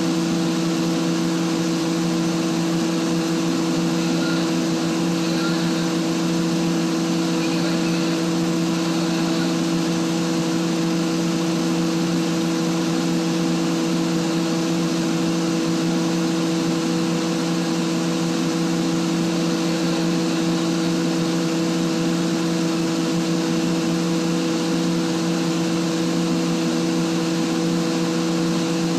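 Atlas Copco rotary screw air compressor running loaded: a steady hum with several constant tones, as it builds outlet pressure back up toward 8 bar.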